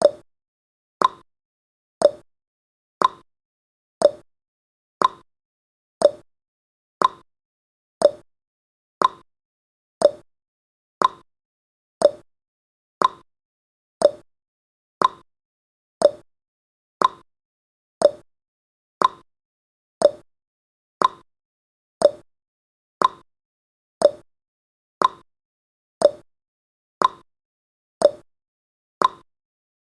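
Timer ticking sound effect: one sharp click each second, alternating between a lower and a higher tick like a clock's tick-tock.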